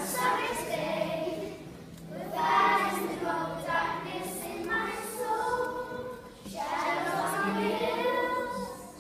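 A group of children singing together in long held phrases with short breaks between them.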